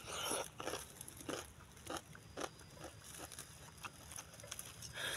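A raw cucumber, fresh off the vine, being chewed: crisp crunches about every half second.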